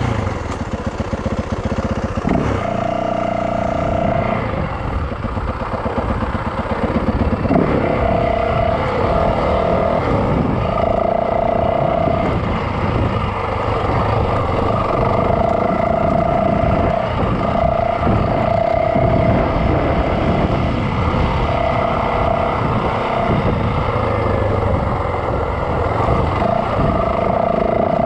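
Yamaha dirt bike engine running as the bike is ridden along a trail, with a steady high whine that comes and goes every second or two.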